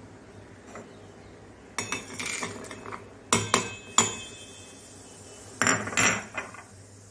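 Garlic cloves, a piece of ginger, cumin seeds and peppercorns tipped from a glass bowl into an empty stainless-steel mixer-grinder jar: seeds rattling on the steel and sharp clinks of glass on the jar. The sound comes in three bursts, the loudest clinks in the middle one.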